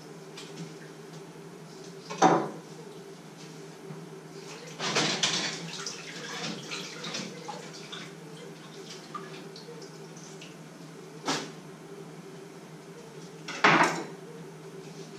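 Pots, pans and utensils clattering at a stove and sink: two sharp knocks, about two seconds in and near the end, and a few seconds of clinking and scraping around the middle, over a steady low hum.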